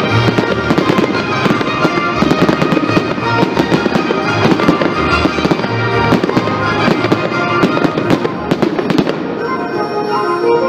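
Aerial firework shells bursting in a rapid run of bangs and crackles, over music playing. The bangs stop about nine seconds in, leaving the music.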